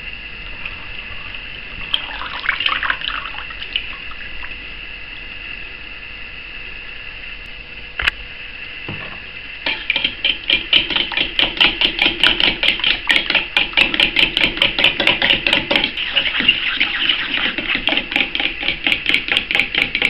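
A fork beating eggs, buttermilk and melted butter in a stainless steel bowl, clicking against the metal about four times a second; the beating starts about ten seconds in. Before that, a single knock about eight seconds in.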